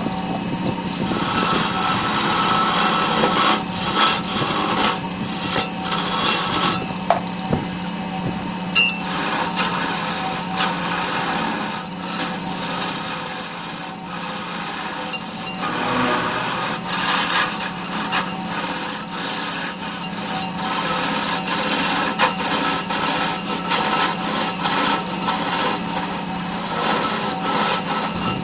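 Large wood lathe running with a steady motor hum while a hand-held turning tool cuts into the spinning wood, a rough scraping hiss that breaks off and starts again many times.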